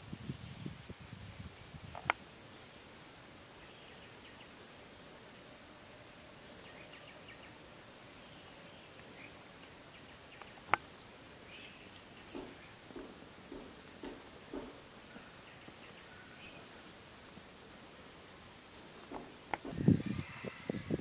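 Steady high-pitched chorus of insects. Two sharp clicks, about 2 and 11 seconds in, and a few low knocks near the end.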